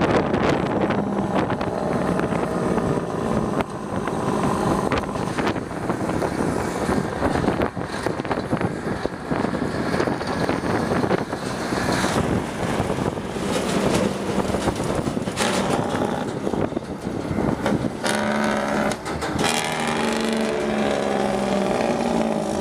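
Peterbilt 377 tractor-trailer's diesel engine running under load close alongside, heard from a moving car over wind buffeting and road noise. In the last few seconds its exhaust note turns clearer and pitched.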